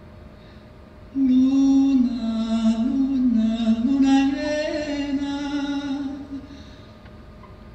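A single voice chanting a slow, wordless melody in long held notes, starting about a second in and trailing off past the middle.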